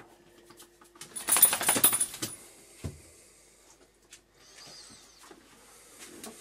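A brief jangling, clattering rattle about a second in, made of many quick clicks, followed a moment later by a single knock.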